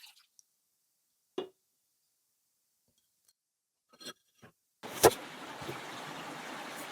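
Near silence broken by a single sharp knock, then a steady rush of river water starts suddenly about five seconds in, with a loud knock just after it.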